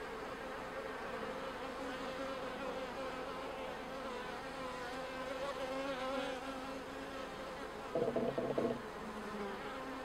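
Honeybees of a package colony buzzing steadily around an open top-bar hive and the comb held up close: a continuous, slightly wavering hum. A short, louder low sound breaks in about eight seconds in.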